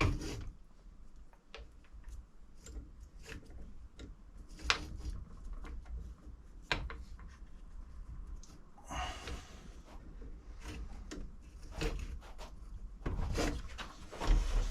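Workshop handling noises: scattered clicks, knocks and light rattles of small tools and metal parts being handled around a bench vise, with a scraping slide about nine seconds in and busier, louder clattering near the end.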